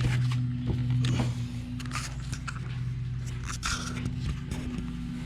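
Scattered light knocks and scraping as a rebuilt ATV starter motor is nudged and worked into its tight-fitting mount with a mallet handle, over a steady low hum.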